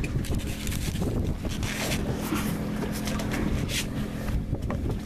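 Boat engine idling steadily, with wind buffeting the microphone in brief rushes.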